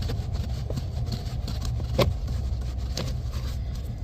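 A steady low engine hum, like a vehicle idling, with a few light clicks and a sharper tick about two seconds in as the last Phillips screw holding the blower motor is worked out under the dash.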